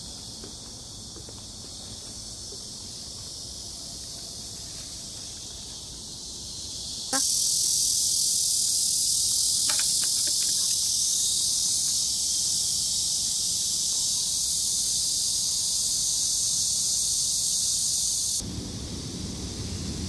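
A chorus of insects shrilling in a steady high buzz, which swells sharply louder about a third of the way in and drops back just as suddenly near the end, when wind rumble on the microphone comes in.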